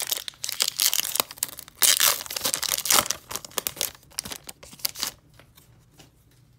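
Trading cards and their crinkly pack wrapper handled at close range: irregular rustling, crinkling and tearing noises that stop about five seconds in.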